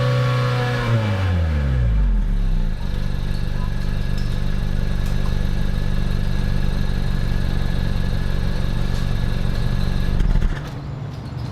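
Honda Vezel's exhaust note: the engine, held at raised revs, drops back to idle over about a second and a half and idles steadily, then the sound drops away abruptly near the end.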